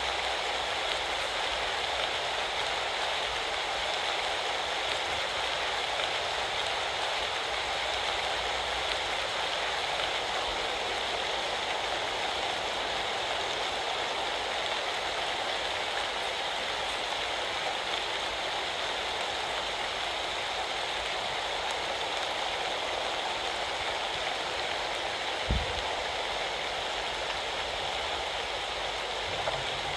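Steady autumn rain falling hard. A brief low thump stands out near the end.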